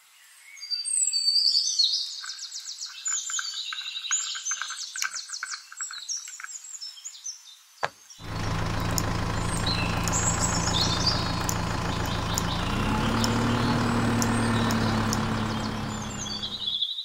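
Birds chirping in quick high trills for about eight seconds, then a click and an engine running steadily, its pitch stepping up about two-thirds through before it fades near the end.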